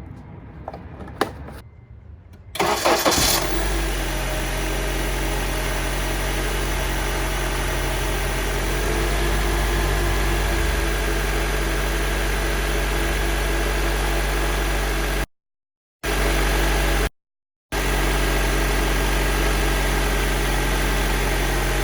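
A 2003 Honda CR-V's 2.4-litre four-cylinder engine starts about two and a half seconds in, after a single click. It flares briefly, then settles into a steady idle after the oil change. The sound cuts out twice briefly near the end.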